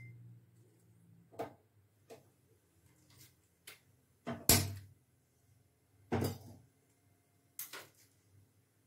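A few scattered knocks and clunks of a steel pot being handled and set down on the grate of a gas stove burner. The loudest comes about halfway through.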